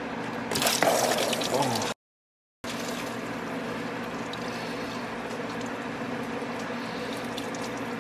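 Engine coolant gushing from a disconnected EGR cooler coolant line on a 6.7L Cummins and splattering over the engine, because the cooling system was not drained first. It is loudest in the first couple of seconds, cuts out for about half a second, then goes on as a steady pour.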